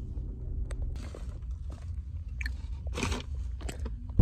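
A person chewing and crunching food close to the microphone, a handful of irregular crunches, over the steady low rumble of a car cabin.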